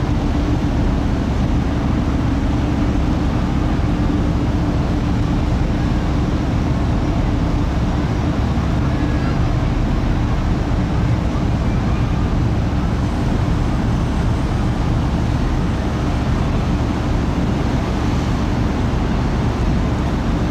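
Car ferry's engines running with a steady low rumble under wind and water noise on deck, and a steady hum that fades after the first few seconds.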